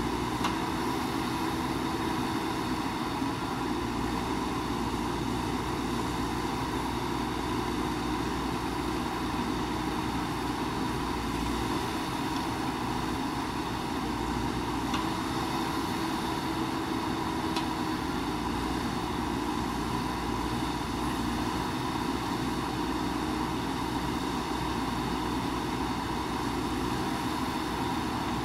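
JCB backhoe loader's diesel engine running steadily under load as it works its digging arm, with a few faint clicks of the bucket and soil handling.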